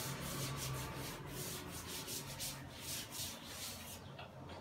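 Cloth duster rubbing chalk off a blackboard in quick back-and-forth strokes, fairly faint, stopping about four seconds in.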